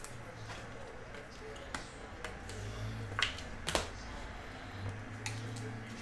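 Baseball trading cards and their plastic wrapping being handled by hand: light rustling with a few sharp clicks and taps. The two clearest clicks come a little past halfway.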